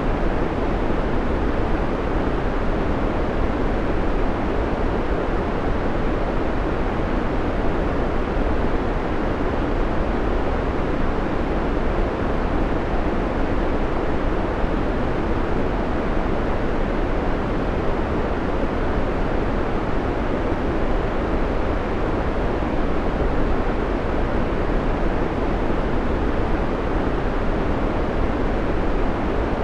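Steady synthetic white noise: an even, unchanging rushing hiss, fuller in the low and middle range than in the highs.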